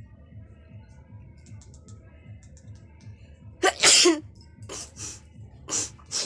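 A woman sneezing hard, set off by chili, a little past halfway through. Several shorter, breathy bursts follow close behind.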